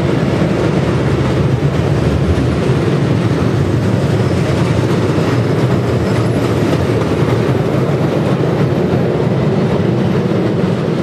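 A train rolling along the track: a loud, steady rumble of wheels on rails.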